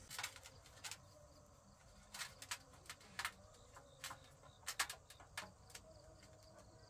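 Split-bamboo grilling sticks clacking and knocking together as they are handled and pulled apart: about ten sharp, irregular clacks over a quiet background.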